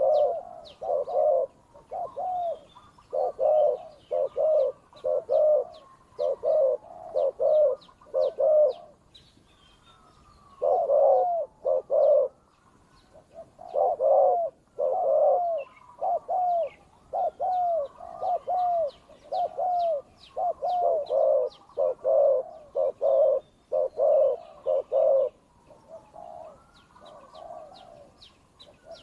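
Doves cooing in rapid repeated runs, a decoy and a wild dove calling against each other in a territorial contest, with short pauses between runs and faint high chirps of small birds above them.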